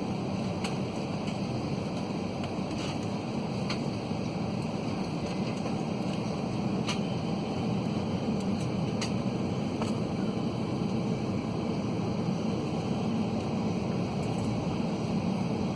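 Steady airliner cabin noise aboard an Airbus A320: the even rush of the cabin ventilation with a low hum underneath, and a few faint clicks.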